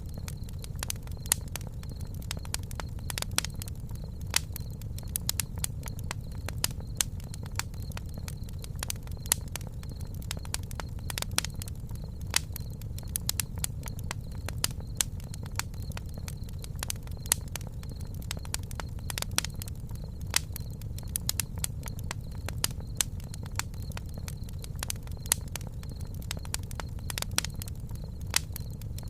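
Campfire crackling: frequent irregular sharp pops and snaps over a steady low rumble, with a faint steady high tone beneath.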